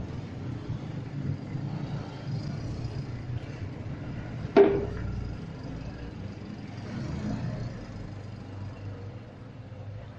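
Motorcycle-and-sidecar tricycle engine running as it moves off, mixed with road traffic as a steady low rumble. A brief sharp sound about four and a half seconds in is the loudest moment.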